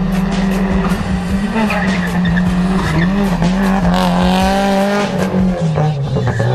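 Subaru Impreza rally car's engine running hard through a hairpin, with the tyres squealing about four seconds in as the car turns.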